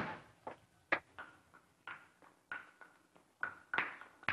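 Repeated sharp smacks of blows as a child is beaten, irregular at about two to three a second, the first the loudest and the rest fainter.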